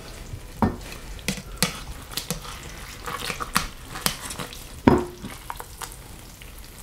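Metal tongs clicking and scraping in a slow cooker's crock while lifting a cooked chuck roast out of its gravy, with wet squelching of the meat and juices. Scattered sharp clicks, with one heavier knock about five seconds in.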